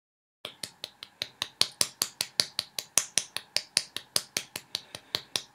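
A hand rapidly smacking the base of an upturned sauce bottle, a steady run of sharp taps about four to five a second starting about half a second in, to shake out a very thick sauce that will not pour.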